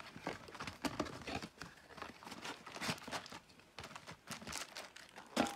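Plastic wrapping and security seal of a trading-card booster box being torn and crinkled open: a run of irregular, quiet crackles and rustles.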